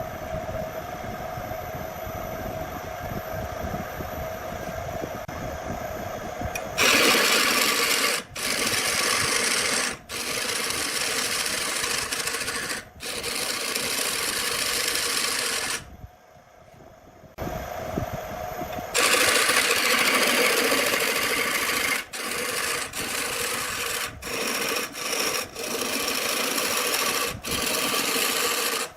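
A power tool working on wood: a steady hum for the first several seconds, then a loud, harsh grinding noise in stretches a few seconds long, separated by brief breaks.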